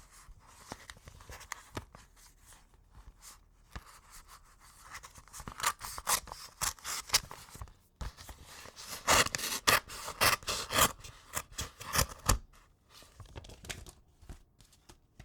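A knife slitting open a paper envelope: a run of short scraping and tearing strokes that gets busier and louder partway through, then thins out near the end.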